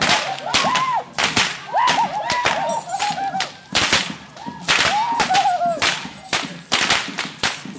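Tlacololero dancers' long whips cracking over and over, sharp loud cracks coming irregularly, often two or three within a second. Between the cracks a short swooping high melody plays, like a reed flute.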